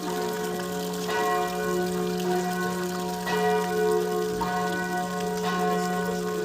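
Church bell tolling, struck about every two seconds, each stroke ringing on into the next over a steady low hum.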